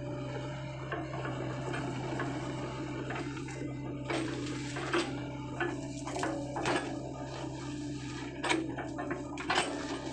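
Hydraulic excavator's diesel engine running steadily, with irregular sharp clanks and cracks as it works through palms and brush, mostly in the second half.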